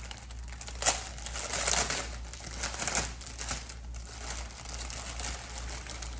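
Packaging crinkling and rustling as it is handled and opened, with a sharp click about a second in.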